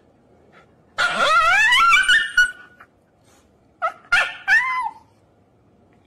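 Shiba Inu screaming in protest while its nails are clipped: one long drawn-out cry rising in pitch about a second in, then a couple of shorter cries about four seconds in.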